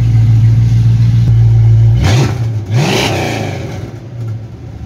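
1996 Cadillac Fleetwood's 5.7-litre LT1 V8 running steadily on its newly replaced fuel pump, with a short rise and fall in pitch about two seconds in.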